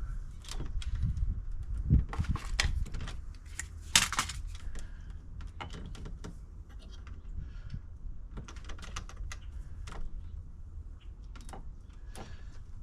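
Irregular clicks, taps and scrapes of stiff electrical wire and fittings being handled and pushed into place, with two louder knocks about two and four seconds in.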